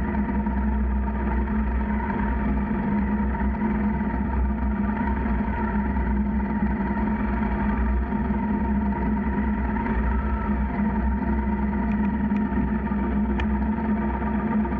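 Motorcycle engine running at a steady speed while riding, with a constant low hum and road noise and no change in pace.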